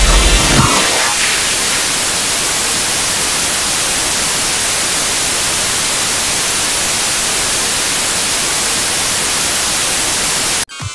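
Steady hiss of television static, an even white noise, cutting off abruptly near the end. The tail of a bass-heavy electronic track fades out under it in the first second.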